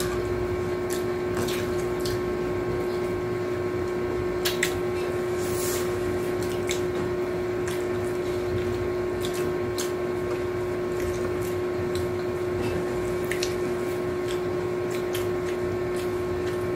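Steady hum with a constant low tone, over which come scattered short crackles and clicks of tortilla chips being picked over and eaten by hand from plates.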